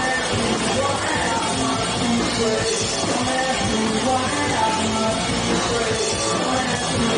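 Live rock band playing: a male lead singer singing into a microphone over electric guitars, bass guitar and drum kit, at a steady loud level.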